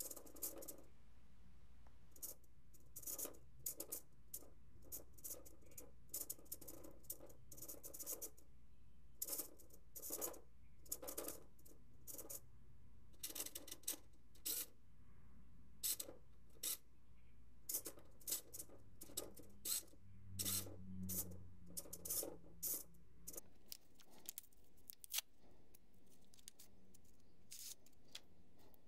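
Two hobby micro servos whirring in many short, irregular bursts as a joystick swings a 3D-printed dunking arm back and forth. Near the end a tea bag packet crinkles as it is handled.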